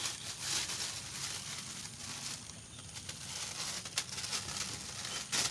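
Thin plastic bag crinkling and rustling as it is handled, in uneven patches, with sharper crackles about four seconds in and near the end.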